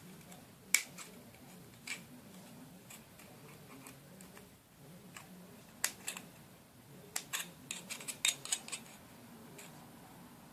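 Scissors snipping slits into the thin metal wall of a screw-on bottle cap: scattered sharp metallic snips and clicks, a few single ones, then a quick run of them bunched together in the last few seconds.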